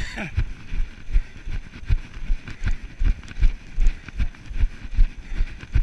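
A runner's footfalls on grass, heard as dull thumps through a body-worn action camera, keeping an even stride of about two and a half steps a second. A brief falling tone sounds right at the start.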